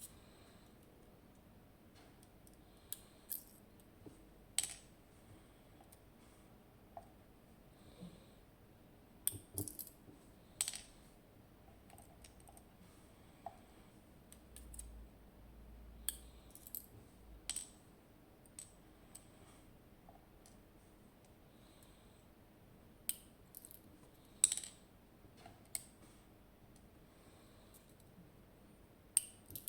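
Scattered small metallic clicks and taps, irregular and a few seconds apart: a zIKON SK6 lock cylinder being taken apart, its main pin stack worked on with tools and small parts.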